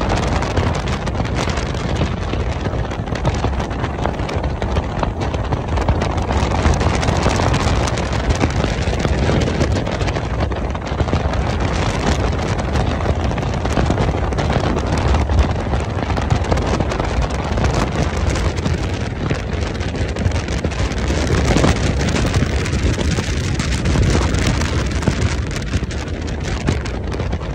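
Wind buffeting a microphone held out of a moving vehicle's window, a steady heavy rush with road and engine noise underneath.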